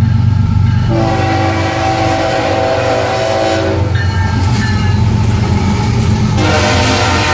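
Freight train rolling past with a steady low rumble and a loud, sustained multi-toned whine or squeal. Its pitch shifts about a second in, again near four seconds, and once more past six seconds.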